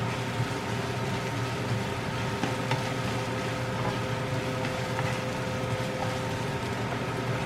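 Finely chopped garlic and onion sizzling steadily in hot vegetable oil in a frying pan, with faint scattered crackles, over a steady low hum.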